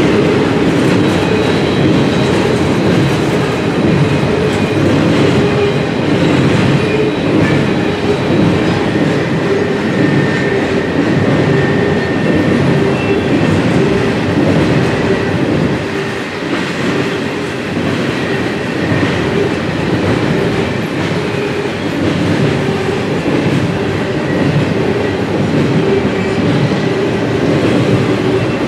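Freight train of TTX cars rolling past: a loud, steady rumble of steel wheels on rail, with clicking over rail joints and a faint high squeal now and then.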